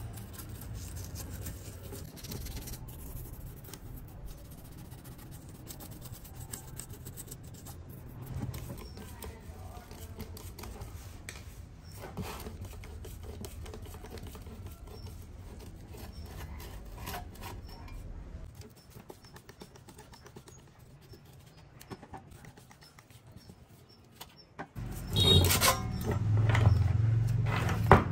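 Soft scratching of a small brush scrubbing the connectors of a dirty computer motherboard, then light screwdriver work on a desktop power supply. About three seconds before the end comes the loudest part: metallic clattering and rattling as the power supply's sheet-metal case is handled and opened.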